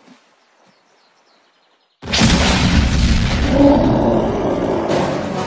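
A monster's roar, a cartoon sound effect: after a quiet pause it starts suddenly and loudly about two seconds in and lasts about three seconds.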